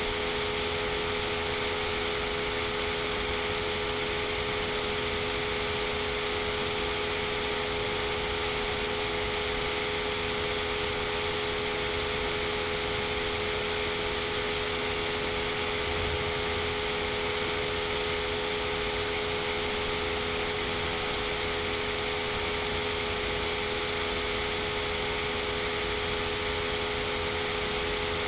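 Steady, unchanging hum and hiss with a few constant tones, like a fan or electrical noise picked up by a recording setup; nothing starts or stops.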